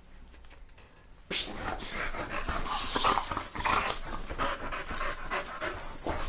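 A dog making play noises and scrabbling on a bed's comforter during rough play. The sound starts abruptly about a second in and keeps going.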